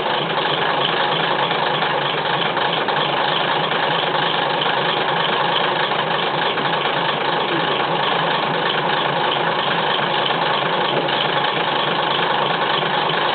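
Diesel railcar engine, the DMH17 inline-eight of an ex-JNR KiHa 20, idling steadily. It is heard close up through an open floor inspection hatch inside the car.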